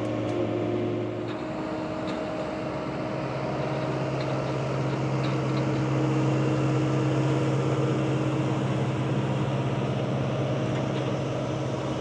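Tractor engine running steadily while it drives a McHale round baler, a constant drone that rises slightly in pitch and loudness about two seconds in.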